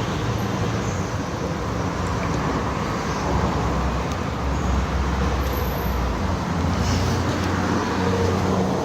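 Road traffic noise: a steady wash with a low engine rumble that grows stronger about a second in and eases off near the end.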